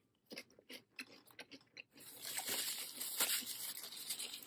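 Crispy fried-chicken breading being pulled off and eaten: a few light crackles as the piece is picked off, then, about two seconds in, close, steady crunching as it is chewed.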